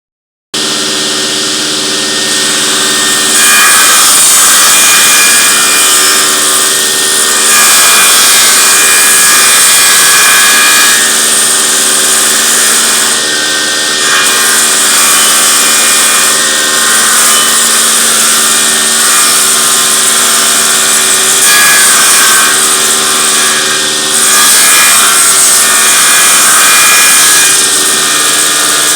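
Electric power saw running and cutting wood. The loud cutting noise sits over a steady motor hum and swells and eases over several long passes.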